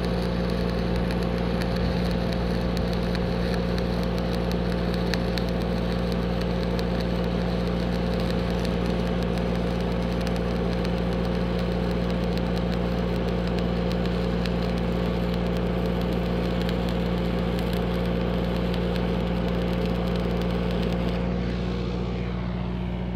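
Stick welding with 3/32" 7018 rod: the arc's steady crackle and sizzle over the steady drone of the rig's engine-driven welder. The arc stops near the end while the welder's engine keeps running.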